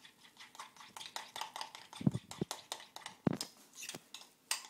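Utensil scraping and clicking against a bowl while stirring a thick ricotta-and-cheese filling: a quick run of small clicks, with a few heavier knocks about two and three seconds in.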